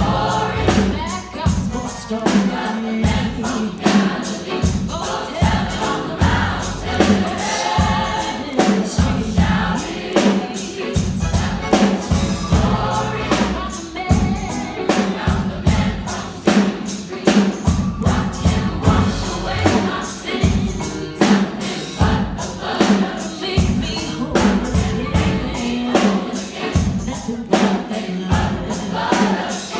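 A gospel choir and a female soloist singing with a live band, keyboard and drums keeping a steady beat.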